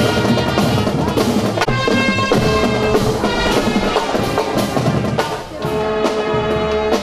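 Marching drum band playing: trumpets and other brass holding chords over steady drum beats.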